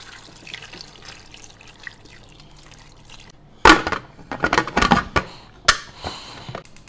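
Water pouring into an aluminium pressure cooker full of pig's trotters, then the cooker's metal lid fitted on with a run of loud clanks from about three and a half to six seconds in.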